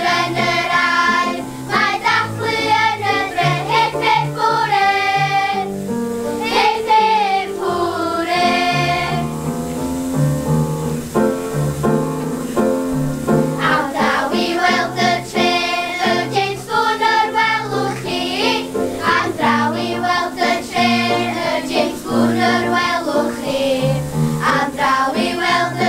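A children's choir singing a song together, with a steady instrumental accompaniment under the voices.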